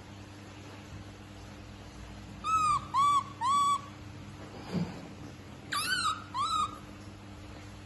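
Newborn baby monkey crying: five short cries that each rise and fall in pitch, three in quick succession and then two more about two seconds later. These are the cries of a hungry infant calling for its milk bottle.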